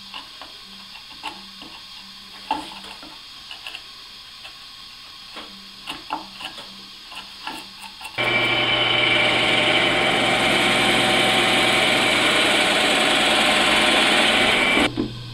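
A hand chisel paring wood in a slot, with scattered small scrapes and clicks. About eight seconds in, a WEN benchtop drill press starts abruptly, running loud and steady as it bores into a wooden board. Near the end the cutting stops and the motor's hum carries on.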